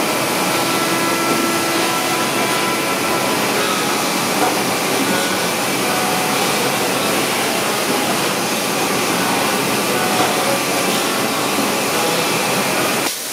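Steady machinery noise with a constant hiss from a running packaging line built around a Cerberus combination checkweigher and metal detector, with a few faint steady tones over it.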